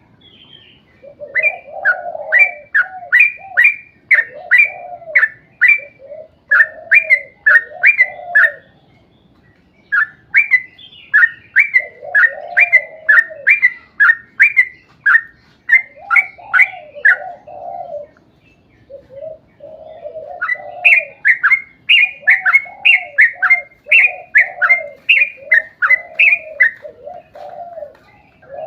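Yellow-vented bulbul (trucuk) song: long rapid runs of short, sharp falling notes, about four or five a second, broken by two brief pauses. Lower warbled phrases run beneath the notes.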